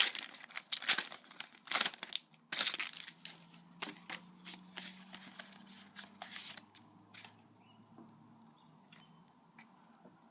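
Foil Pokémon booster pack wrapper being torn open and crinkled, dense at first, then thinning to scattered crinkles and going quiet about seven seconds in.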